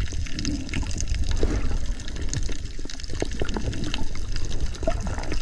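Sea water heard through an action camera's microphone while submerged: a steady low rumble of water with scattered short clicks and bubbling.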